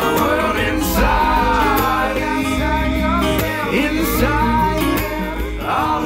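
Background music: a song with a singing voice over guitar and a steady beat.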